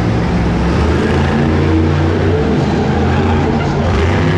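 Monster truck engine running loud and steady, its pitch shifting up and down now and then as it revs.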